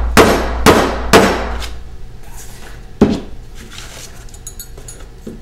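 A small mallet striking the textured spackle surface of a printing substrate, three quick blows in the first second or so and one more about three seconds in, knocking down a high spot so it will not catch in the printer.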